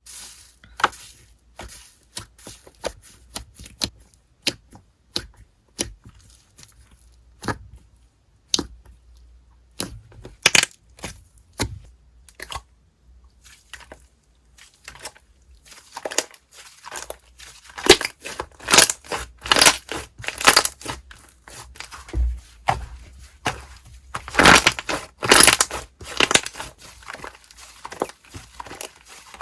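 Slime being squished and pulled by hand, giving sharp crackles and pops. They come sparsely at first, then thick and fast through the second half.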